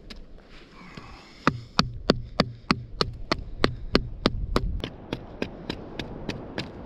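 A large knife chipping at the face of a split log of soft, dry wood, flattening it for a friction fire. Sharp, regular strokes, about three a second, start about a second and a half in.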